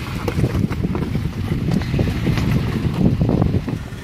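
Low rumble of a Jeep Wrangler creeping over loose rocks, mixed with wind buffeting the microphone.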